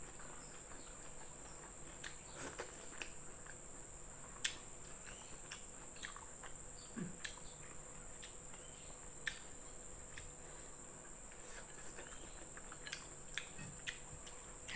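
Quiet eating by hand: scattered soft clicks and smacks of chewing and of fingers picking at spinach and fried chicken, over a steady high-pitched hiss.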